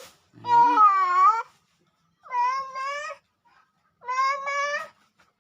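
A cat meowing three times, each meow about a second long, with short pauses between.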